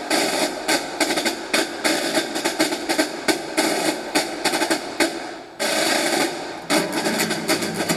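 Rapid, irregular sharp cracks, several a second, over loud sustained music. The sound dips and cuts back in abruptly about five and a half seconds in.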